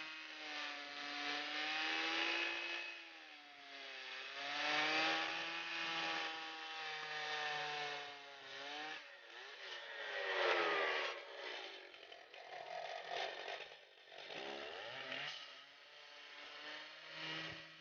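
Chainsaw power head driving a swing-blade sawmill's circular blade as it saws wood. The engine's pitch rises and dips every few seconds under varying load, with a rougher patch about ten seconds in.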